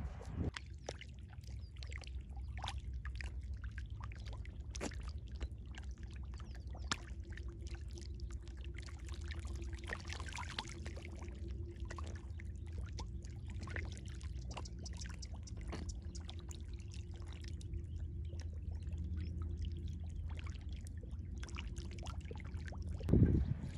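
Water splashing and sloshing as hands work in a flooded hole: many small splashes and clicks over a steady low rumble.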